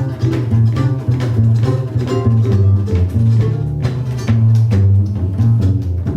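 Bluegrass band playing an instrumental break on banjo, mandolin, acoustic guitar and upright bass, with the bass notes standing out under quick plucked picking.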